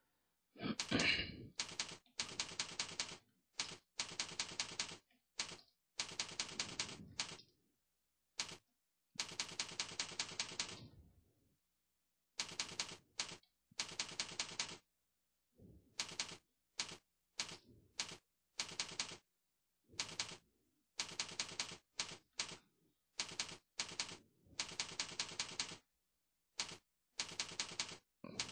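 Computer keyboard typing: bursts of quick keystrokes separated by short pauses.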